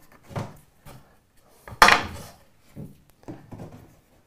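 Handling noises on a wooden workbench as cord is threaded through holes in a pine board: a few knocks and rubs of wood, the loudest knock about two seconds in.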